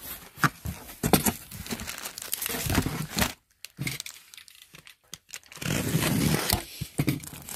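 Cardboard flaps rustling and scraping as a shipping box is opened, a short quiet spell, then a box cutter slicing and tearing through the packing tape on an inner cardboard carton near the end.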